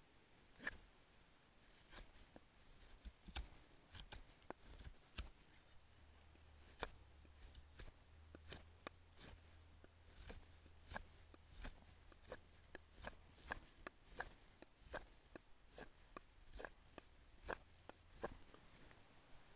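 Scandi-ground bushcraft knife carving a wooden spoon blank: a string of short, quiet shaving cuts, roughly one or two a second at uneven spacing.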